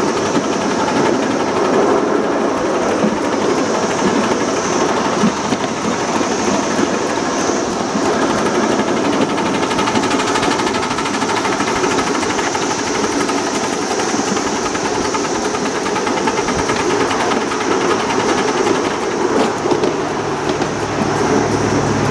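Ride-on live steam miniature locomotive and its riding cars running along the track, a steady rapid mechanical clatter. A low steady hum joins near the end.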